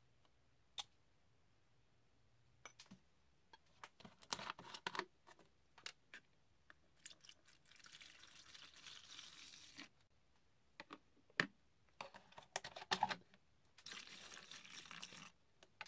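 Liquid poured from a plastic jug into a plastic tub, in two pours of about two seconds each, with clicks and knocks from handling the jug and tub before and between the pours.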